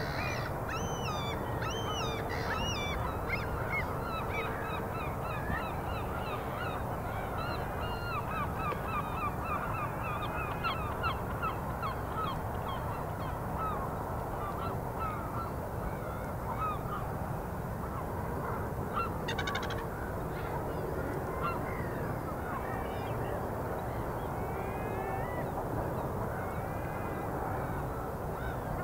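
Birds calling, many short repeated calls coming thick and fast, over a steady low background rumble.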